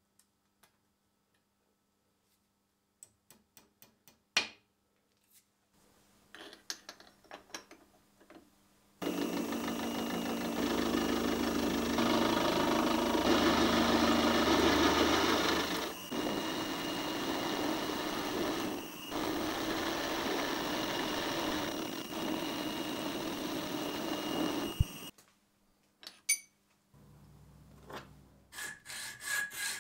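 A few light metallic clicks of parts being handled. Then a small milling machine runs, its fluted cutter boring into an aluminium block with a steady, loud cutting noise and a high whine. It starts suddenly a third of the way in and cuts off shortly before the end.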